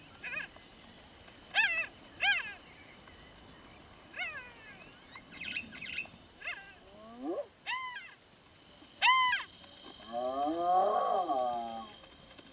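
Wolf and hyena calling in a standoff over a kill: about seven short, sharp yelps that slide down in pitch, then a longer wavering call near the end.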